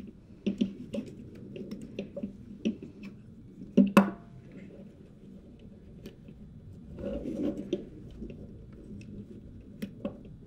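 Handling noise from fingers stretching elastic bands and hooking them onto the clips of an LA-220 microphone shock mount's cage: scattered small clicks and rubbing, with one sharper click about four seconds in and a stretch of rustling around seven seconds.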